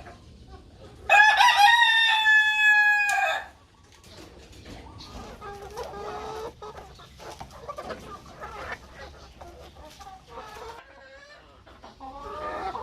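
A native chicken rooster crows once, loud and about two seconds long, starting about a second in. Hens then cluck and call softly for the rest of the time.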